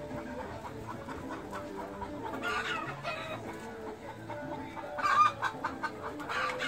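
Fowl clucking and calling continuously, with louder, higher calls about two and a half seconds in and again about five seconds in, the second the loudest.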